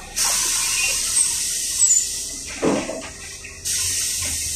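Steady hissing rush of wind and road noise inside a moving LiAZ 5292.67 city bus, coming in suddenly right at the start and dropping away briefly for about half a second after three seconds.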